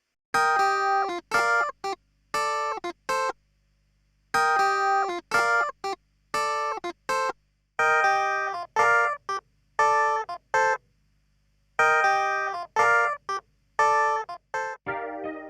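Virtual instrument preset with a plucked, guitar-like tone playing a short staccato chord phrase, repeated four times with silent gaps between. Just before the end a sustained chord in a different, keyboard-like sound begins.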